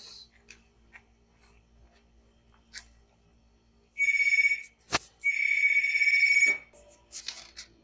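Two loud electronic beeps at one steady high pitch, about four seconds in: a short one, a sharp click, then a longer one of about a second.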